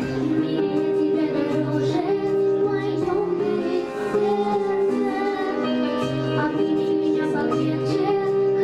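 A young girl singing into a handheld microphone over instrumental accompaniment, her voice holding long notes above a steady bass line.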